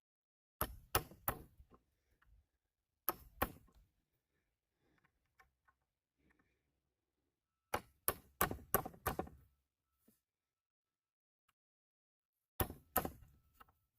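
A hammer striking wood in four short runs of sharp blows, two to six at a time, with pauses between.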